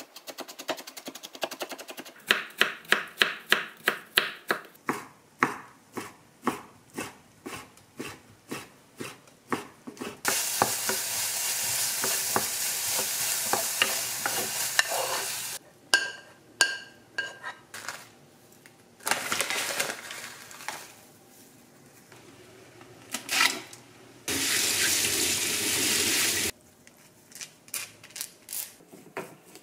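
Chef's knife mincing carrots on a wooden cutting board, quick knocks of about three a second, then slower. After that, diced carrot sizzling in a frying pan in several stretches, stirred with a wooden spatula. Near the end, light clinks of chopsticks on a metal mesh strainer.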